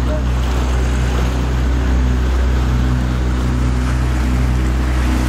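Tour boat's motor running steadily: an even, low hum under a constant hiss.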